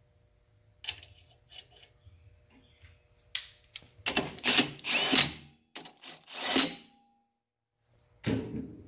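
Cordless drill with a socket spinning nuts down onto the studs of a brake drum, in three short runs, after a few light metal clicks as the nuts are threaded on by hand. The tool starts again near the end.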